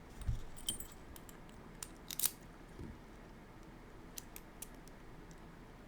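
Scattered small metallic clicks and taps from an Assa Desmo lock and its key being handled and worked, as the lock is locked back up for disassembly. There is a soft bump just after the start and a sharper click a little over two seconds in.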